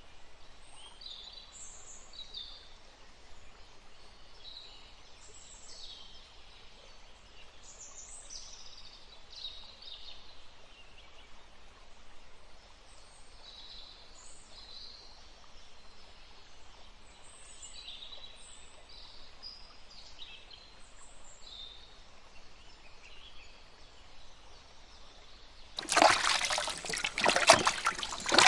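Birds chirping intermittently over a faint outdoor background. Near the end, loud splashing and trickling of water begins as raw chicken pieces are washed in a steel pot.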